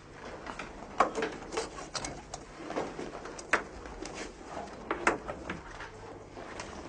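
A school bag being opened and rummaged through by hand: its flap, clasp and contents give scattered clicks, knocks and rustles, the sharpest about a second in, at two seconds, midway and at five seconds.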